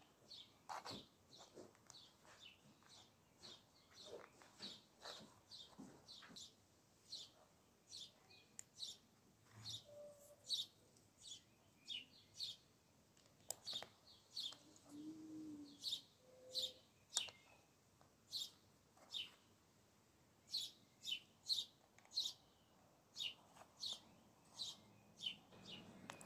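A small bird chirping over and over, short sharp chirps about two a second, with a few faint clicks of plastic bricks being pressed together.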